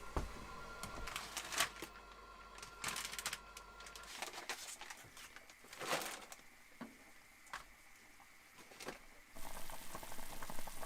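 Scattered light knocks and clinks of kitchen handling, then from about nine seconds in a steady bubbling hiss as a pot of stew comes to the boil.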